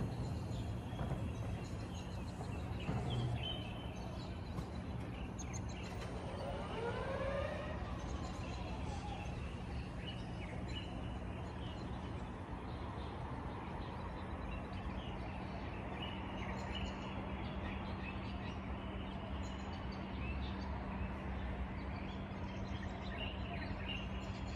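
City residential ambience: a steady distant traffic hum with a constant low drone, and small birds chirping intermittently. About seven seconds in comes a brief tone that rises and falls.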